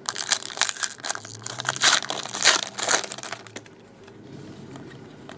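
Plastic trading-card pack wrapper being torn open and crinkled, a dense crackling for about three seconds that then dies down.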